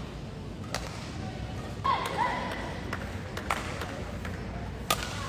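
Sounds from a badminton court: three sharp smacks, about a second in, midway and near the end, and brief shoe squeaks on the court surface around two seconds in, over the steady background noise of a large hall.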